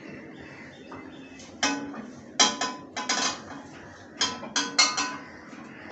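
Stainless-steel bowl and plate clinking and ringing as raw fish pieces are washed and moved between them: about nine sharp metallic knocks in quick clusters.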